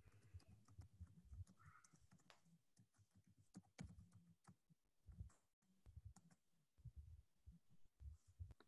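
Near silence: room tone with faint, irregular clicks and soft low bumps scattered throughout.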